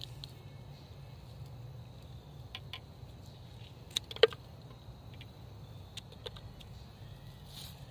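Scissors snipping pigeon pea pods from the plant: a few light clicks and one sharp snip about four seconds in, over a low steady rumble.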